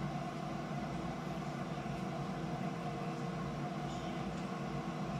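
A steady hum with a constant hiss, holding several fixed tones and a low rumble that do not change, and a few faint soft ticks.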